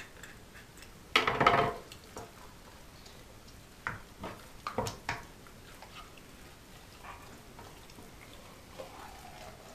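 Kitchen handling noise as a raw pike is skinned on a wooden cutting board: a short clatter about a second in, then a few light knocks and clicks of hands and knife against the board around four to five seconds, with quiet, soft handling between.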